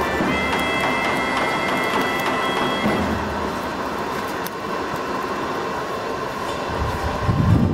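Coal forge air blower running with a steady rush of air, a faint steady whine over it for the first few seconds. A low rumble comes in near the end.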